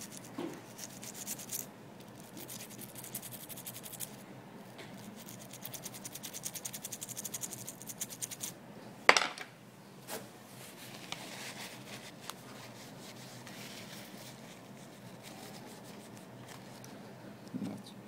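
Toothbrush bristles scrubbing the dock-connector port of an iPhone 4S, a fast scratching of many strokes a second that stops about eight and a half seconds in. A sharp knock follows, the loudest sound, then a fainter click a second later and softer brushing after.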